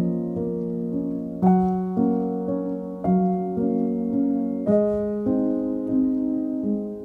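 Background music: slow piano playing held chords and melody notes, with a stronger new chord struck about every one and a half seconds.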